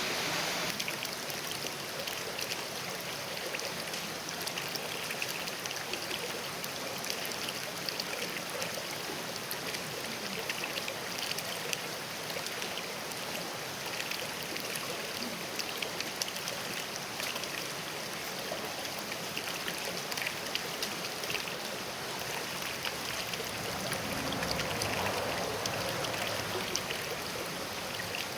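Creek water rippling and splashing over rocks, a steady rush with fine bright trickles and droplets, a little fuller about three quarters of the way through.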